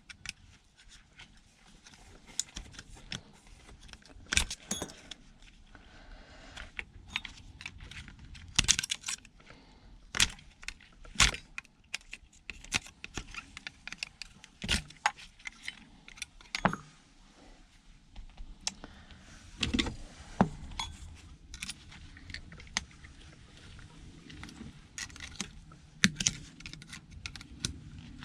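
Irregular clicks, clinks and knocks of small metal and plastic parts being handled and pried at, as thin brass contacts are dug out of a scrapped handheld vacuum's battery section.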